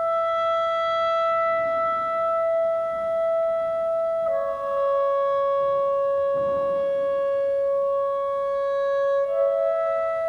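Clarinet playing long, steady held notes: one pitch for about four seconds, a step lower for about five, then back up near the end.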